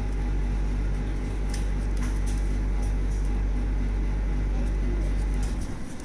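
Steady low mechanical hum that stops about five and a half seconds in, with faint crackles of paper being creased and folded by hand.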